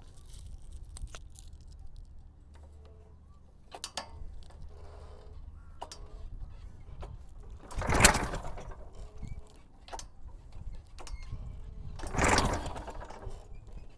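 Two pull-start attempts on a paramotor's small two-stroke engine, each a loud cranking burst of about a second, about four seconds apart. The engine does not keep running after either pull.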